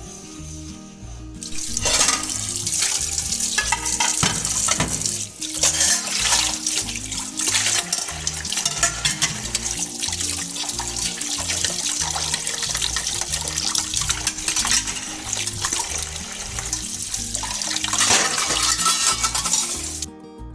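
Water running from a kitchen tap into a sink, starting about a second and a half in and stopping just before the end, over background music.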